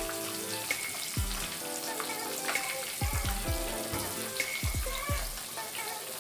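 Whole tilapia frying in a pan of hot oil, sizzling with fine crackles, under background music with a regular thumping beat.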